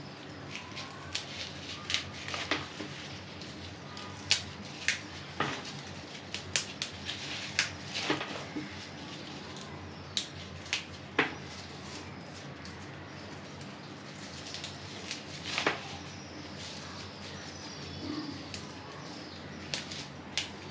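Cowpea leaves being picked over by hand for cooking: irregular crisp snaps and rustles as leaves are plucked from their stems, over a faint steady background hum.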